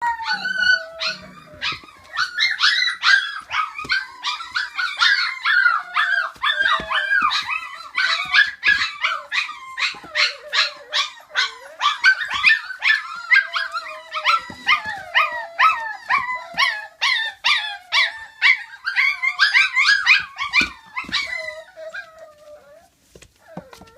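A litter of five-week-old standard schnauzer puppies yipping and howling over one another in a dense chorus of high, sliding cries, which thins out near the end.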